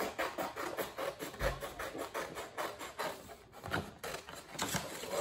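Scissors cutting through stiff construction paper in a quick run of short, scratchy snips.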